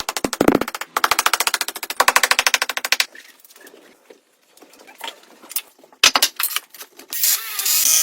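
A fast mechanical rattle of sharp strikes, many a second, lasting about three seconds, followed by scattered knocks and a harsh, noisy burst near the end.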